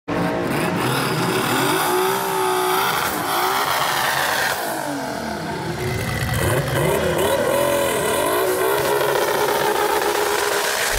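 Twin-turbo VR6 engines of a twin-engine Volkswagen Golf revving, the pitch rising and falling several times.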